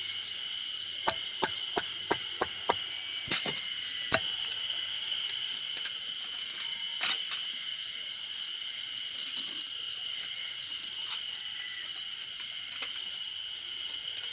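Helle Temagami knife shaving feather curls off a wooden stick: a quick run of about eight crisp cutting strokes in the first few seconds, then scattered scraping strokes. Insects buzz steadily behind it.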